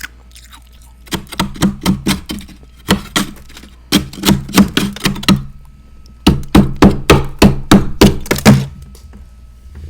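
Hard freezer frost crunched between the teeth: three runs of loud, sharp crunches at about three or four a second, with short pauses between the runs.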